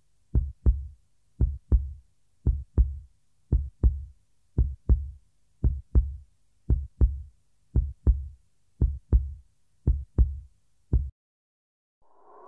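A heartbeat sounding as deep paired thumps, a lub-dub about once a second, that stops about eleven seconds in. After a moment of silence a ringing tone begins to swell in near the end.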